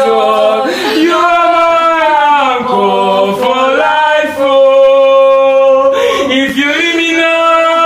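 A man singing a slow gospel song in long held notes, with the words "Jesus, Jesus, Jesus" and "you are my anchor for life".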